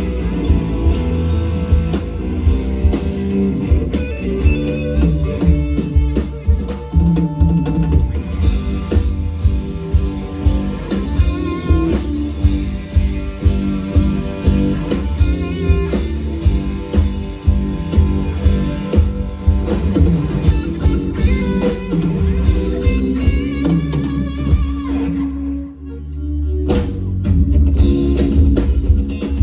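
Live band playing an instrumental passage with guitar, bass and drum kit in a steady beat. Near the end the band briefly drops out, then comes back in.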